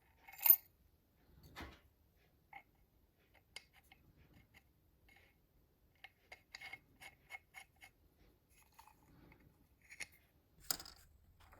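Light metallic clicks and taps from handling a restored manual hand drill: one sharp ringing click at the start, a knock, then a quick run of small even ticks about midway, and a couple more clicks near the end.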